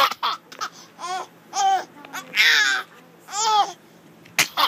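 Baby's high-pitched squeals and giggly vocalising: four short rising-and-falling squeals, the third a little longer, with a couple of sharp clicks near the start and near the end.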